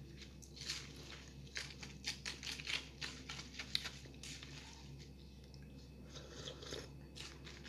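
Eating melted halo-halo with a plastic spoon: the spoon scrapes and stirs in the paper cup, with mouth sounds of eating. A quick run of small scraping and clicking sounds starts about a second and a half in and lasts a couple of seconds, with a few more near the end, over a steady low hum.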